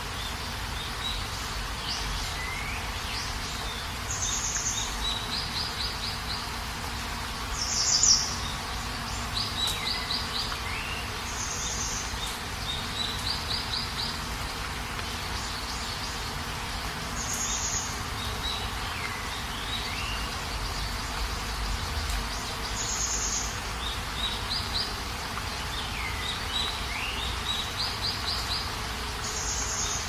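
Steady rain hiss with birds calling over it: short repeated trills, calls that slide downward, and a brighter high chirp every few seconds, the loudest about eight seconds in.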